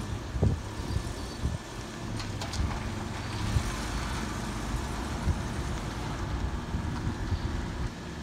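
Lincoln Continental Mark III's big V8 engine running as the car creeps slowly past, a steady low rumble with occasional low thumps.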